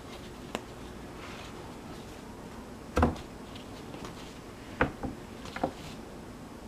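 Cards being handled on a tabletop: a few light taps and knocks, the loudest a thump about three seconds in, then a quick run of taps near the end.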